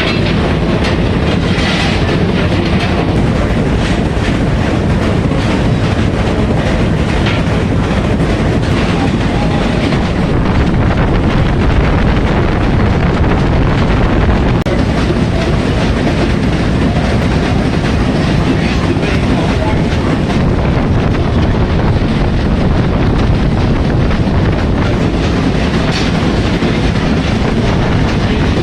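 Loud, steady machinery din in the boiler room of the coal-fired steamship TSS Earnslaw: a continuous rumble with scattered light clanks and knocks.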